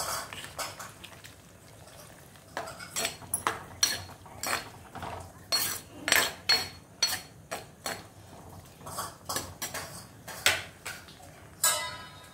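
Long steel spoon stirring a simmering prawn and potato curry in a heavy black pot, scraping and clinking against the pot in irregular strokes, two or three a second. Near the end comes a single ringing metal clink.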